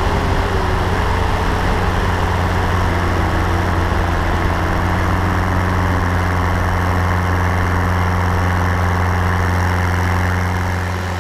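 Steady drone of a light aircraft's piston engine and propeller, heard from a camera mounted on the plane, with air rushing past over a low even hum.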